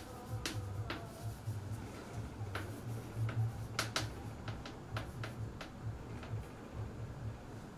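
Chalk writing on a blackboard: irregular sharp taps and short scratches as the letters are formed, over a low steady hum.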